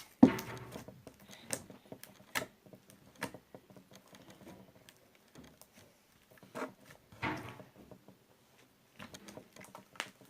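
PVA glue and borax slime being squeezed and stretched by hand, giving irregular small clicks and pops of trapped air, with a louder squelch just after the start.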